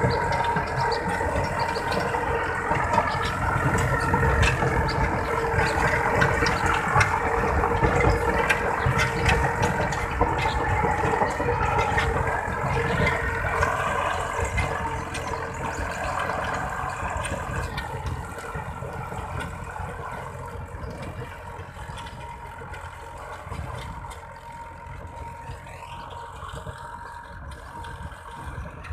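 Massey Ferguson MF-260 tractor's diesel engine running steadily under load while it drives a rotavator churning through dry soil. The sound fades gradually as the tractor moves away.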